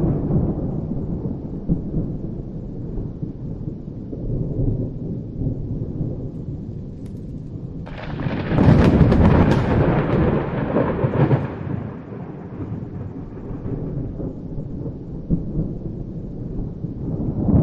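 Thunderstorm: thunder rumbling over rain. A low rumble fades off at first; about eight seconds in a sudden, louder crack of thunder breaks and rolls away over several seconds, and another rumble builds near the end.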